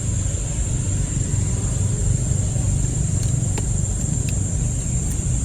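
Steady outdoor background noise: a low rumble with a steady high-pitched drone over it and a few faint clicks.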